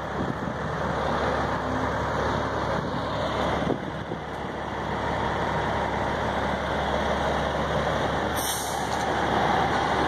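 Steady low rumble of an idling semi truck, with a short, sharp hiss of air about eight and a half seconds in.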